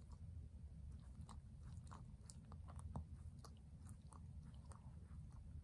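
Shih Tzu licking and nibbling at its front paws: faint, irregular mouth clicks over a low steady hum.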